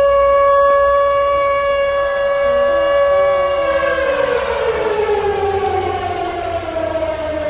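Civil defense siren holding one steady tone, then winding down, its pitch falling slowly over the last four seconds.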